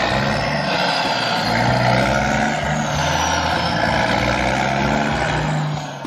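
Engine sound effect of a vehicle running steadily: a dense, even engine noise over a low hum, dropping away near the end.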